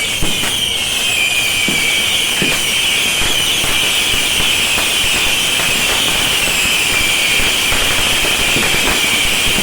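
A massed barrage of bottle rockets from a beehive fireworks tower: a dense, shrill whistling screech that sinks slowly in pitch, over a constant crackle of pops and bangs.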